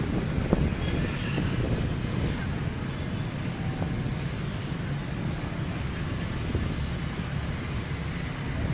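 Train running: a steady low rumble, with a few faint knocks about half a second in.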